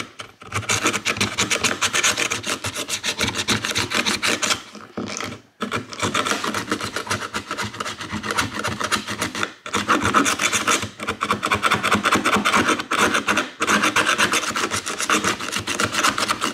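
A metal hand tool scraping dried weatherstrip foam and old adhesive out of a C4 Corvette's aluminium roof channel, in rapid, hard back-and-forth strokes. The scraping stops briefly a few times between runs of strokes.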